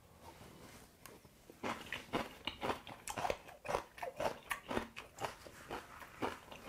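Close-miked crunchy chewing of a mouthful of cabbage kimchi, a run of sharp irregular crunches starting about a second and a half in.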